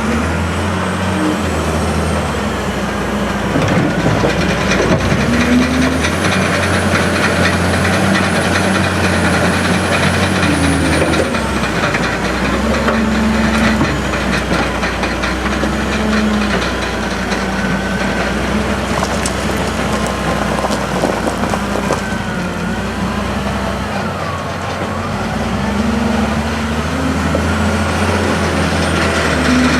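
Diesel engine of heavy construction machinery running under changing load, with a thin high whine that rises in and fades out twice.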